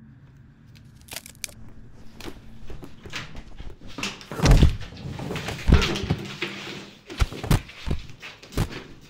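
Fight-scene hits and body impacts with scuffling: a run of thuds, the heaviest about four and a half and nearly six seconds in, with more sharp hits near the end.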